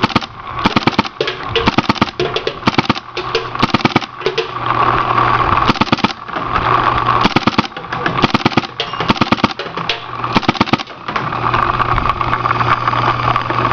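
Electronic Autococker Trilogy Pro select-fire paintball marker firing rapid strings of shots in ramping mode, around 18 a second, each string lasting about a second. A small motor whirs steadily between strings.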